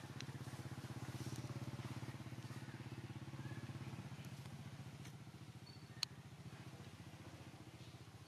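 A small engine running steadily nearby, a low throbbing hum that swells over the first few seconds and then eases off. A single sharp click about six seconds in.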